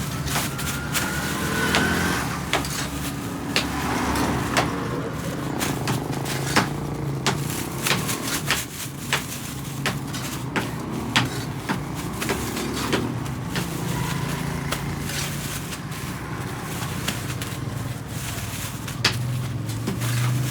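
An engine-driven machine running steadily, with frequent sharp clicks and knocks over its hum.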